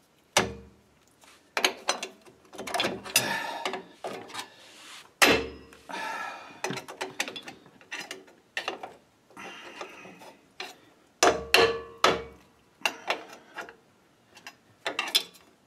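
Irregular metallic clinks, clanks and scrapes as rear drum-brake hardware and a hand tool are worked against the backing plate of a classic Ford drum brake. Some of the knocks ring briefly.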